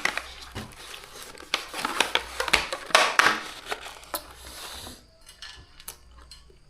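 Eating sounds: a utensil scraping and clattering in a takeaway noodle container, busy with quick clicks for the first four seconds or so and sparser after about five.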